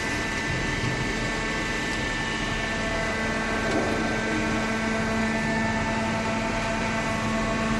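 Hydraulic cardboard baler's electric motor and pump running with a steady hum and whine.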